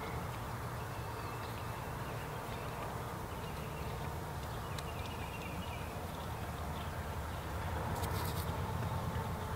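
Outdoor evening ambience: a steady low rumble with faint, short high chirps now and then, and a brief scratchy crackle about eight seconds in.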